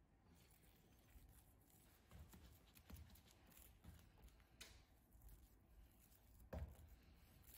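Faint handling sounds of hands folding and rolling a sheet of wet sourdough dough on a kitchen countertop: scattered soft dull pats, with a sharper thump about six and a half seconds in.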